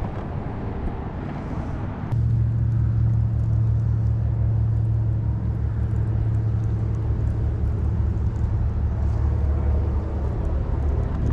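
A bass boat's electric trolling motor runs with a steady low hum and rumble, which comes in suddenly about two seconds in. Before it there is only a wash of wind and water noise.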